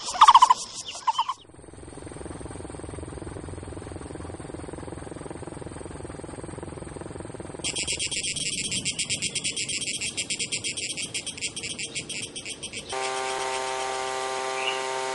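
A few loud animal calls in the first second. About eight seconds in, a pulsing insect chorus starts buzzing, and near the end it gives way to the small petrol engine of a portable field machine running at a steady pitch.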